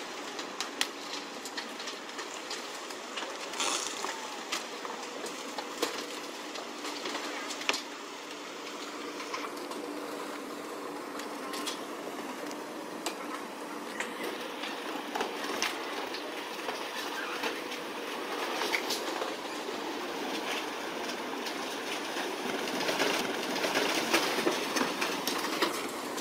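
Cargo ship pushing through moored motorboats: irregular cracking and crunching of the small boats' hulls over a steady low hum and churning water. It grows louder near the end as the ship's side churns up white water.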